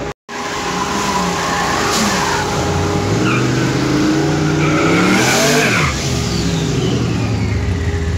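Street-car engines running and revving, rising and falling in pitch in the middle, with tire squeal, then settling into a steady low rumble.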